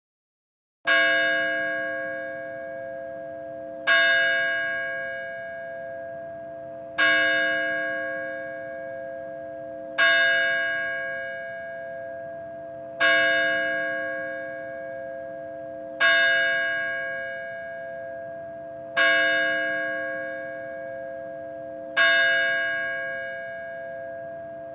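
A single church bell tolling, struck eight times at an even pace of about one stroke every three seconds. Each stroke rings on with the same pitches and is still sounding when the next one comes.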